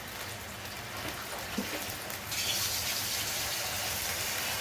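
Onion and ginger-garlic paste frying in oil in a pan with a little water added, sizzling steadily; the sizzle grows louder and brighter a little over two seconds in.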